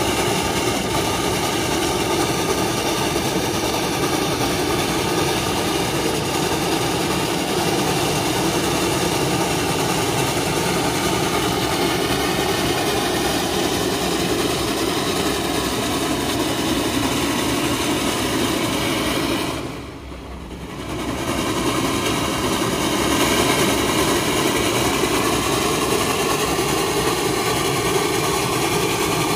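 Steady running noise of Reading & Northern 425, a 4-6-2 steam locomotive working under steam, mixed with the road and engine noise of a car pacing it. The sound drops away briefly about twenty seconds in, then comes back.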